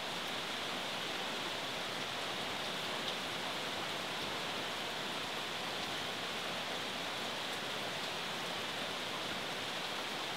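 A steady, even rushing hiss that fades in at the very start and then holds level, with no distinct events in it.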